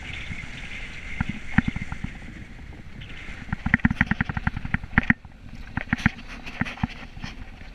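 A vehicle driving slowly over snow-covered pavement, heard from a camera mounted outside beside its side mirror: a steady low road and wind noise. About halfway in comes a quick run of sharp clicks and knocks, several a second, with a few more shortly after.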